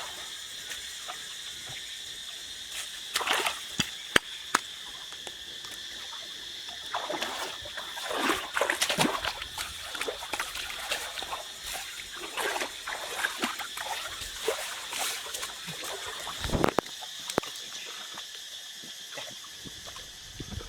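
Irregular splashing and sloshing of water, as of someone wading and groping through a river, with louder splashes about 3 seconds in, around 8 to 9 seconds and near 17 seconds. A steady high-pitched chorus drones in the background.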